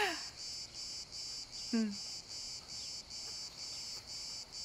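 Crickets chirping in a steady rhythm, about two high chirps a second. A brief low voice sound comes about two seconds in.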